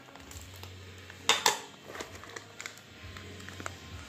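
Handling noise of a phone held against skin and a fringed swimsuit: soft rubbing and small clicks, with one louder brief scrape about a second in.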